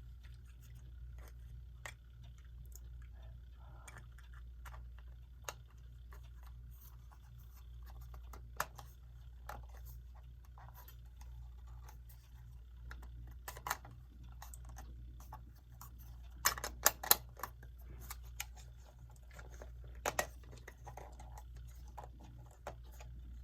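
Scattered small clicks and taps of a quartz clock's parts being handled as its glass and rim are fitted back over the dial. The sharpest is a quick cluster of snaps about two-thirds of the way through, with another pair a few seconds later.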